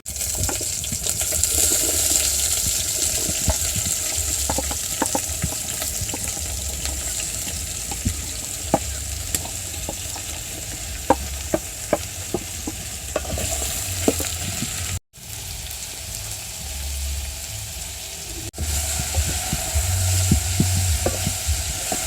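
Food sizzling in a hot cooking pot over a firewood fire: a steady hiss with many scattered sharp pops and clicks. It breaks off abruptly twice in the second half.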